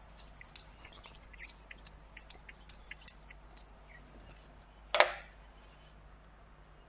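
Felt whiteboard duster rubbed across a whiteboard in short strokes, a quiet run of small squeaks and scrapes, then one sharp knock about five seconds in as the duster is put down on the board's ledge.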